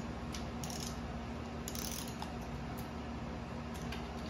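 Ratcheting torque wrench clicking in short, scattered runs as an intake manifold bolt is run down during the first tightening stage at 27 inch-pounds. A steady low hum runs underneath.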